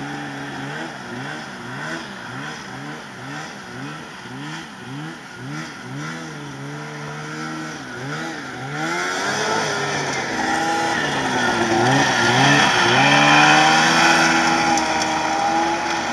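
2010 Polaris IQ Shift 550 snowmobile's two-stroke engine revving up and down in quick repeated blips, about twice a second, then held at higher, louder revs from about nine seconds in.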